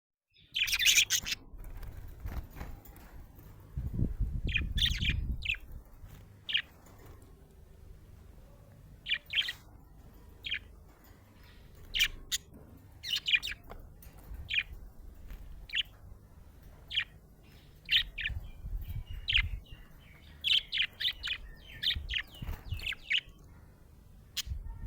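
Budgerigar chirping in short, quick high chirps that come in scattered clusters, loudest in a burst right at the start. A low rumble sounds twice, about four seconds in and again after eighteen seconds.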